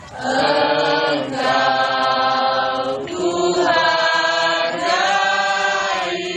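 A group of people singing together in unison, slow drawn-out notes in about four long phrases with brief breaks between them.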